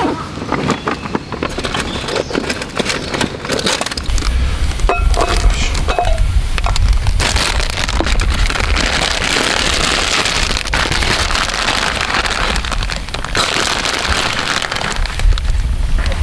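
Crinkling and rustling of a plastic salad bag as leaves are pulled out and dropped into a metal cup, with a few sharp clicks and crackles, and a low rumble from about four seconds in.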